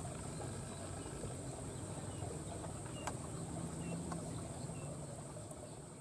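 Rice-paddy ambience: a steady high-pitched insect drone over a low steady hum, with a few faint short chirps.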